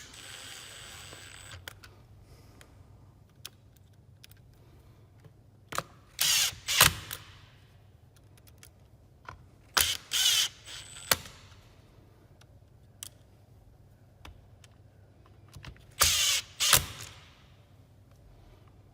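Mechanical sounds of parts being refitted to a chainsaw's chain brake: three pairs of brief, loud whirring or rasping bursts, about 6, 10 and 16 seconds in, with light clicks and knocks between.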